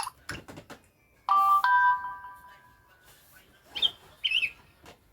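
Samsung Galaxy Star GT-S5282 playing its stock tones through its small speaker: a few clicks, then a short electronic chime of several held notes that fades out, then a few quick chirps near the end.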